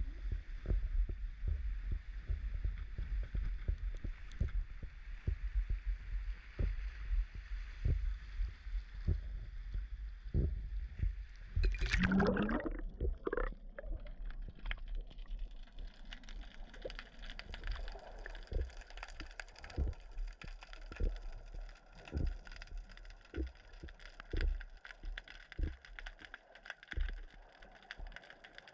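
A waterproof camera's microphone picks up low rumble and frequent thumps above the sea. About twelve seconds in, a splash and gurgle as the camera plunges below the surface. After that the sound is muffled underwater, with scattered soft knocks.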